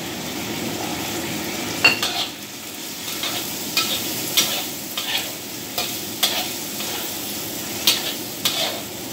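Sea cucumber and vegetables sizzling and steaming in a hot wok, with a metal spatula clanking and scraping against the wok about ten times at irregular intervals.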